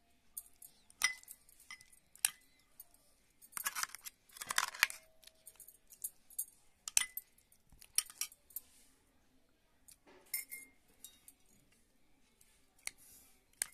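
Steel spoon clinking and scraping against a cut-glass bowl while stirring chutney into boiled potatoes: irregular clinks, a few ringing briefly, with a longer scrape a few seconds in.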